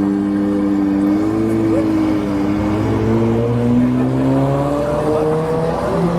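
Supercar engine running at low revs, its note rising slowly and easing off again.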